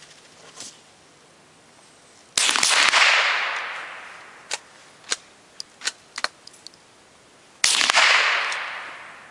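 Rifle shots on a shooting range: a quick cluster of cracks about two seconds in and another shot near the end, each ringing out in a long fading echo. A few small sharp cracks fall in between.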